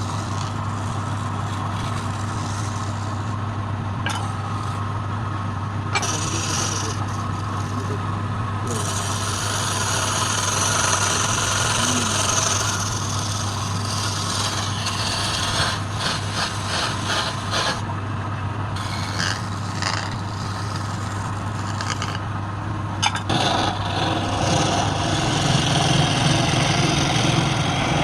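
A wood lathe hums steadily while the spinning wood is rasped and scraped. The scraping changes in texture and loudness, with runs of quick short strokes partway through.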